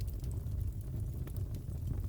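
Fireplace crackling: a steady low rumble of the fire with scattered small pops and snaps of burning wood.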